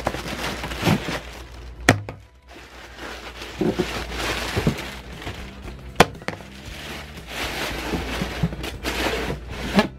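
Rustling of tissue-paper packing and handling noise, with two sharp knocks, about two seconds in and again about six seconds in.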